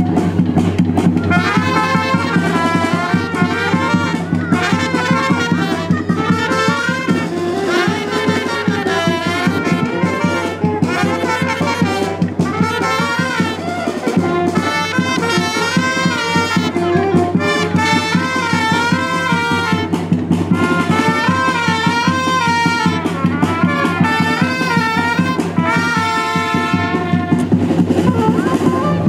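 Dance music with a brass-led melody in repeating wavering phrases over drums and a steady bass line.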